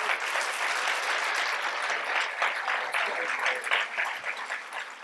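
Audience applauding: many hands clapping steadily, thinning out near the end.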